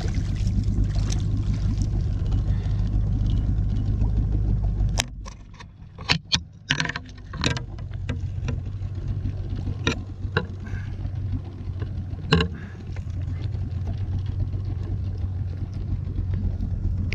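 Small outboard motor running with a steady low hum, which drops away for a couple of seconds about five seconds in. In that gap and after it come several sharp knocks and clicks as a fish is handled in an inflatable boat.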